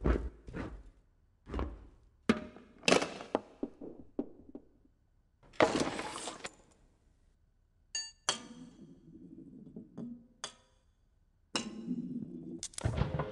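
Honda Accord car parts knocking, clicking and rolling into one another in a chain reaction: a quick string of sharp knocks, then a rolling rattle of about a second near the middle, a ringing metallic ping about eight seconds in, and more clicks and rattling near the end.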